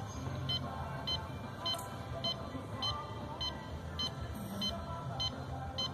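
A short, high electronic beep repeating steadily, a little under two times a second, over a low steady hum.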